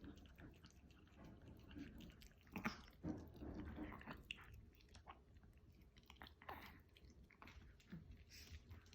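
A Chihuahua chewing: faint, irregular mouth clicks and smacks, with the loudest cluster a few seconds in.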